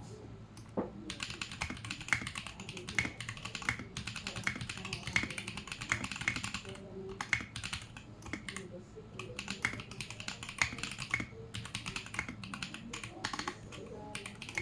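Continuous typing on a Vortexseries VX8 mechanical keyboard with tactile Holy Panda clone switches in an acrylic sandwich case and Tai-Hao keycaps. It is a fast, steady run of keystroke clacks.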